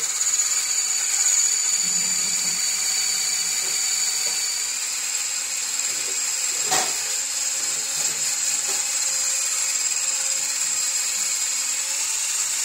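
Handheld electric blender running steadily in a bowl of chocolate cake batter, a continuous high whine. A single short knock sounds a little past halfway.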